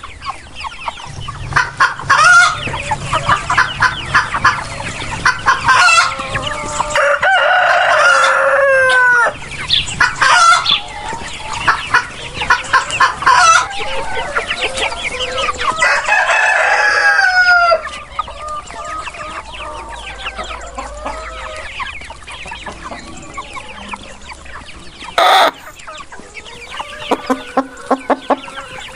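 Chickens clucking busily, with a rooster crowing twice, about a quarter of the way in and again past the middle. A single sharp knock comes near the end.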